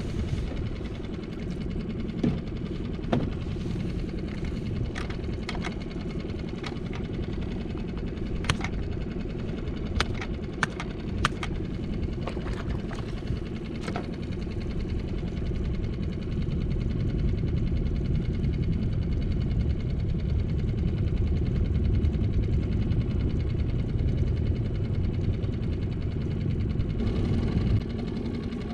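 A series of sharp clicks and knocks from gear being handled on a small fishing skiff, clustered in the first half, over a steady low rumble.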